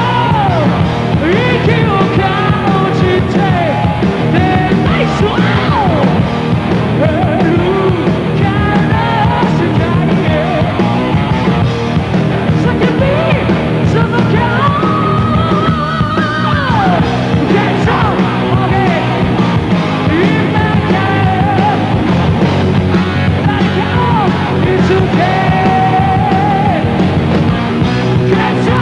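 Heavy metal band playing live: electric guitar and a male singer's vocals over the full band.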